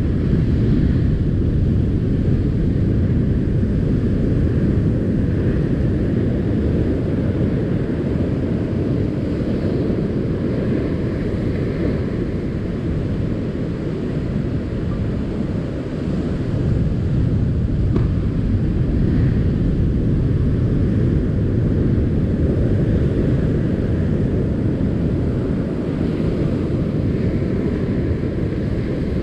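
Steady low rumble of wind buffeting the microphone, mixed with the rumble of heavy surf breaking.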